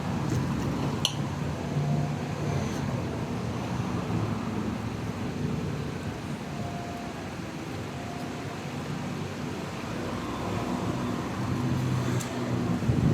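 Steady low background hum with hiss, with a couple of light sharp clicks, one about a second in and one near the end.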